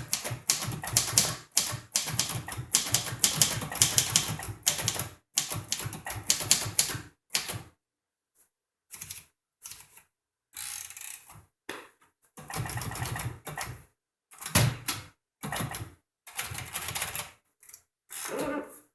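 A 1953 Royal Quiet De Luxe manual typewriter being typed on: a fast, steady run of key strikes for about the first seven seconds, then shorter clusters of mechanical clicks separated by pauses.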